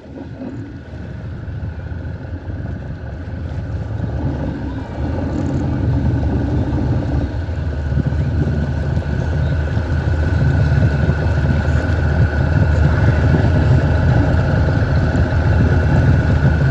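A watercraft engine running at a steady pitch: a low hum with a thin whine above it, growing gradually louder.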